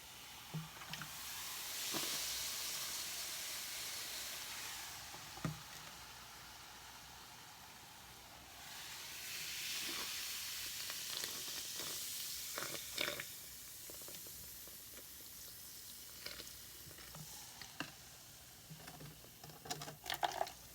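Baking soda and vinegar fizzing in a sink drain: a hiss that swells twice as more vinegar goes in, with a few light knocks.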